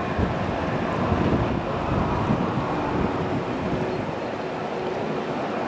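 Wind buffeting the microphone over choppy water, with water lapping and a faint steady hum.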